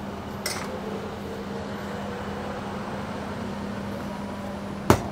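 Food-stall kitchen sounds: a steady low hum, with a light clink about half a second in and a sharp knock near the end as a ladle and a sauce bottle are handled over a steel counter.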